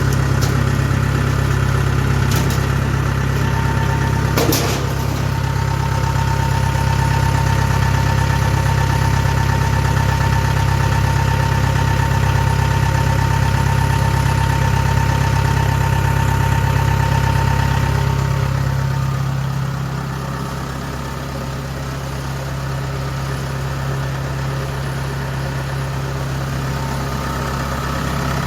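Kubota DC-70 combine harvester's diesel engine running steadily at idle, with two short clicks within the first five seconds. About eighteen seconds in, the sound eases off and becomes quieter and duller, then holds steady.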